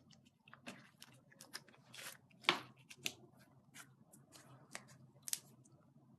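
Slime being squeezed and poked by hand, giving a string of irregular sticky clicks and pops, the loudest about two and a half seconds in.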